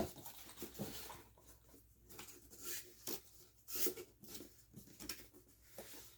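Small metal mounting screws and loose parts being handled and put back into their packaging: scattered light clicks, taps and rustles, with a sharper click at the start.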